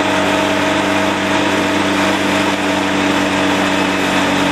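Gyroplane engine running steadily on the ground: a loud, even drone that holds the same pitch throughout, heard from inside the cockpit.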